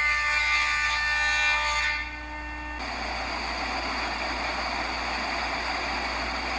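A thickness planer surfacing rough-cut lumber to 3/4 inch. Its high whine while cutting stops about two seconds in, and a steady rushing machine noise carries on after.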